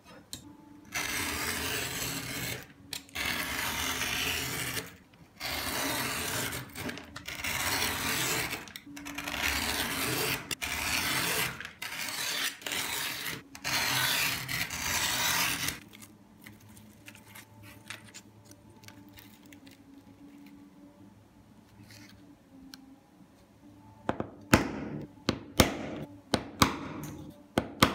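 Utility knife blade drawn again and again along a steel ruler, cutting strips from a sheet of P240 sandpaper: a run of scratchy strokes, each a second or two long with short pauses between. Near the end comes a quick series of sharp taps.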